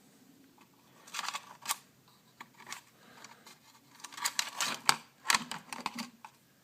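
Clicks, snaps and rustling of the old LCD screen module being worked loose and pulled off the synthesizer's circuit board. The sounds come in a short cluster about a second in and a longer one from about four seconds.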